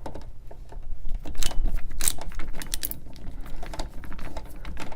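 Irregular small clicks and light rattles of a screwdriver turning a light switch's mounting screws into the electrical box as the switch is seated.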